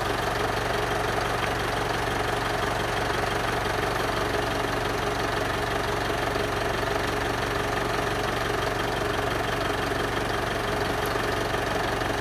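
An engine running steadily, a constant unchanging drone with a low hum.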